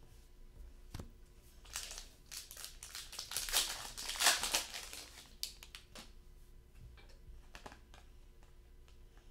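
Foil wrapper of a hockey card pack crinkling as it is torn open, loudest a few seconds in. A single knock comes just before, and light ticks of the cards being handled come after.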